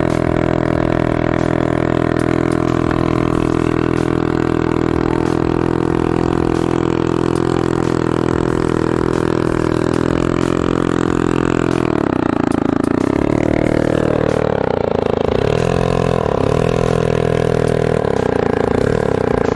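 Small 60cc engine of a Chinese quad ATV running at a steady speed. In the last several seconds its pitch falls and rises again several times as the throttle is eased off and opened.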